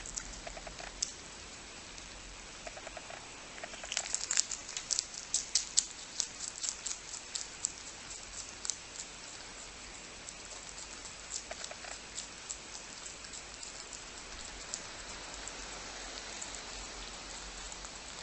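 Rabbit chewing fresh spinach leaves: fast, crisp crunching clicks, densest and loudest from about four seconds in to about eight, then sparser.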